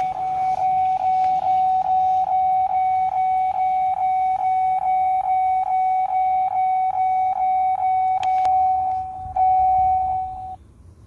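A truck's dashboard warning chime dings rapidly and evenly with the ignition key turned on and the engine off, about two and a half dings a second. It breaks off briefly, resumes, then stops abruptly near the end.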